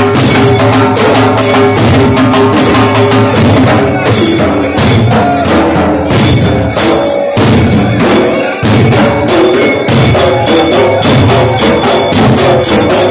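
A troupe of dollu, the large two-headed barrel drums of Karnataka, beaten fast and loud in a dense, driving rhythm, with ringing metallic cymbal tones over the drumming. The low drumming drops out briefly twice around the middle before picking up again.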